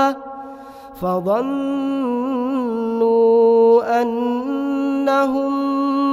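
Male reciter chanting Quranic verses in melodic tajweed style. After a short pause of about a second, the voice holds one long drawn-out phrase, with a quick wavering ornament in the middle and small steps in pitch toward the end.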